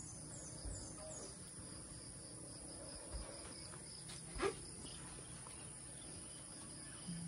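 Steady high buzzing chorus of insects, crickets or similar, with a run of short high chirps in the first second. A few soft thumps are heard, the loudest a single knock about four and a half seconds in.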